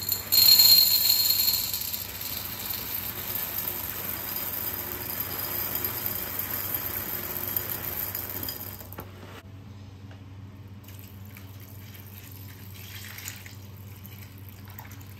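Water running from a tap in a steady hiss that shuts off about nine seconds in, leaving a low steady hum and a few faint clicks.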